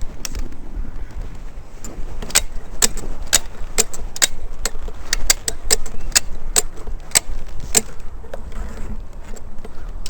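Repeated sharp metallic clicks and clinks, irregular, roughly two a second, over a steady low rumble.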